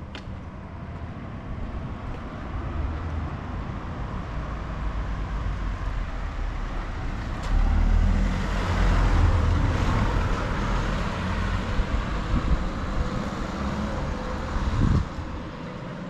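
A road vehicle passing close by on the street, its engine rumble and tyre noise building over several seconds, staying loud through the second half, then cutting off abruptly near the end.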